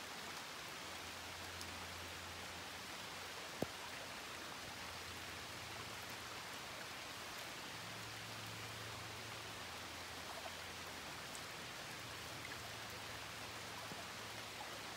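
Steady light rain falling, an even hiss with a faint low hum underneath and a single sharp click about three and a half seconds in.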